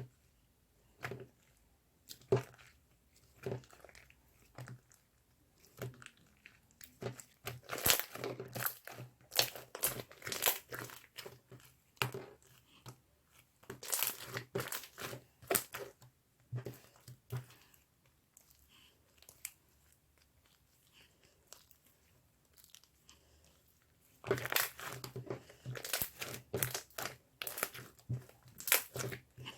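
Irregular crinkling and crackling, like something thin being crumpled or handled. It comes in clusters, with a quieter stretch of sparse clicks in the middle.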